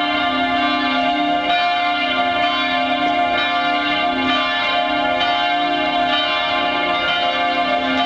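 Church bells of the rebuilt Dresden Frauenkirche ringing together in full peal. Several bells sound at once, their strokes overlapping about once a second over a steady wash of ringing tones.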